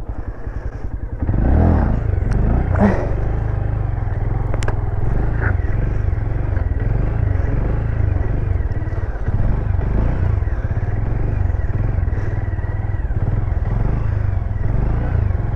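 Motorcycle engine running, picking up about a second in and then holding a steady rumble.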